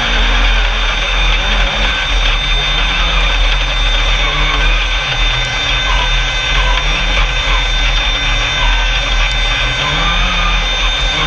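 Onboard sound of an Alumicraft single-seat Class 10 off-road racing buggy at speed over a sandy track: its engine runs hard with its note rising and falling as the throttle is worked, over a heavy steady low rumble and rattle from the chassis.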